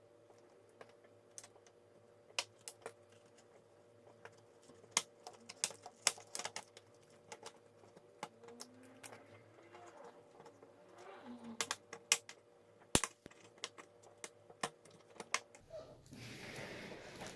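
Irregular small clicks and taps of hard plastic and metal as laptop parts are handled and worked on during disassembly. A brief rubbing, scraping noise comes near the end.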